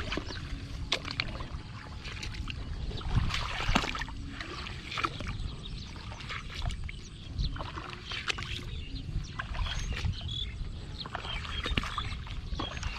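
Water splashing and sloshing in shallow water, irregular throughout, with many small knocks and clicks over a low rumble.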